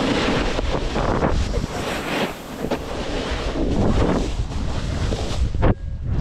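Wind buffeting the microphone while a snowboard slides and scrapes over packed snow at speed, the noise swelling and easing with each turn. Near the end there is a sudden loud moment, then a brief lull.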